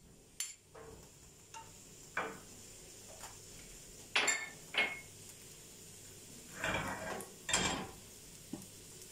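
A series of clinks and scrapes of a glass bowl and tongs against nonstick frying pans on a gas stove, the two longest near the end, over a faint steady sizzle of sliced onions starting to fry in oil.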